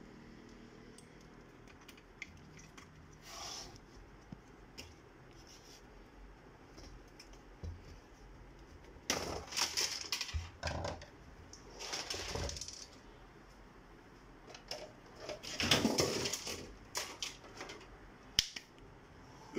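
Metal parts of a disassembled all-in-one computer being handled on a workbench: scattered clicks and light rattles, with louder bouts of clattering and scraping of the sheet-metal frame about halfway through and again later, and a single sharp click near the end.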